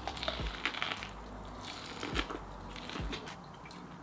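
Biting and chewing boiled corn on the cob close to the microphone: soft wet crunches and mouth sounds, with a few sharper clicks now and then.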